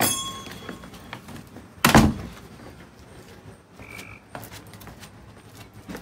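A door being opened and shut: a ringing metallic clink of its hardware at the start, then a loud thunk as the door closes about two seconds in. A brief high chirp follows a couple of seconds later.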